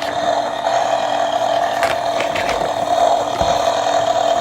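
Small electric motor in a battery-powered toy motorcycle running steadily with a rattly buzz, with a few light clicks.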